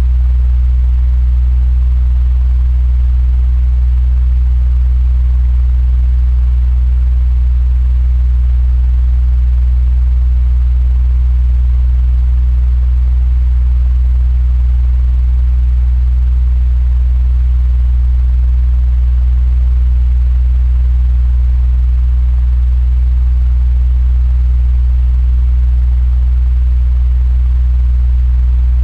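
Electric fan running steadily: a constant low hum with a faint, even rush of air above it.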